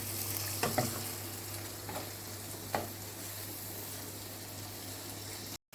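Fried tuna pieces and spice paste sizzling in a frying pan as they are stirred, with a few sharp clicks of the stirring utensil against the pan.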